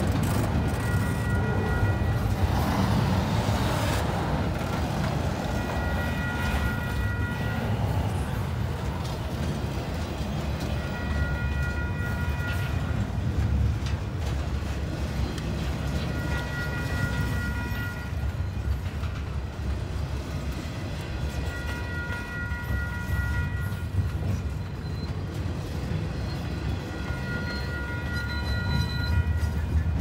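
Double-stack intermodal container train rolling past on well cars: a steady low rumble of steel wheels on rail, with a faint high tone that comes back about every five seconds.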